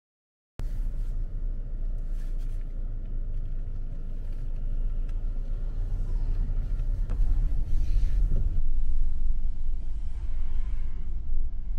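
Low, steady road and engine rumble of a car in traffic, as heard from inside a moving vehicle; it starts after a brief dropout about half a second in.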